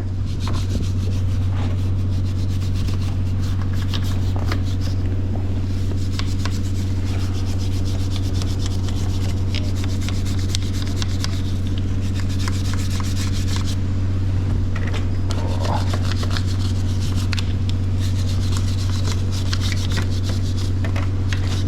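Stiff brush scrubbing a motorcycle drive chain with chain cleaner: continuous rapid scratchy rubbing strokes over a steady low hum.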